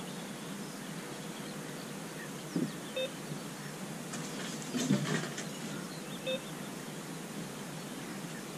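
Carp bite alarm on the rod pod giving two short single bleeps about three seconds apart, over a steady outdoor background hiss, with a brief rustle about five seconds in.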